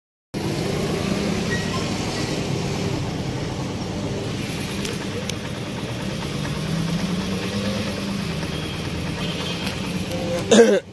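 A vehicle engine running steadily with a low hum, and a brief knock near the end.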